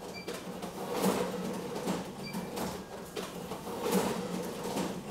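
Mail franking machine running, feeding envelopes through one after another: a steady motor hum with a sharp clack about once a second as each envelope is printed and ejected into the tray, and a couple of faint short beeps.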